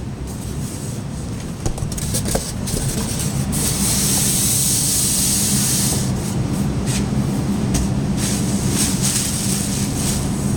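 Packaging being handled while a dehumidifier is unboxed: rustling, scraping and clicks of cardboard and plastic, with a long loud rustle in the middle. A steady low hum runs underneath.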